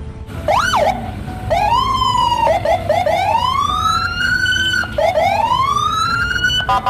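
Electronic police car siren sounding in long rising and falling sweeps, with a quick warble near the middle. Music with an even pulse comes in near the end.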